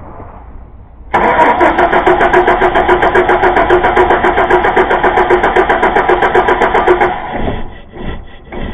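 The starter motor of a 2000 Chevy Blazer's 4.3-litre V6 cranks the engine in a steady, rapid rhythm for about six seconds without it catching, the no-start that the owner puts down to a bad distributor cap. A few uneven bursts of sound follow once the cranking stops.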